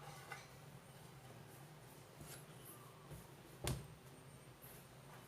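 Mostly quiet kitchen handling while a chilli-garlic-lime dipping sauce is prepared, with faint small scrapes and one short, sharp knock of a utensil about two-thirds of the way through.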